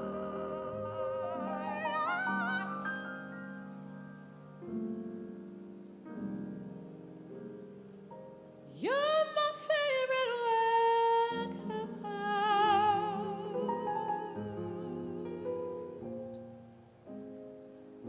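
Female jazz vocalist singing a wordless passage of held notes with wide vibrato over keyboard chords. About nine seconds in she swoops steeply up to a loud, high held note, then slides back down into softer, wavering lines.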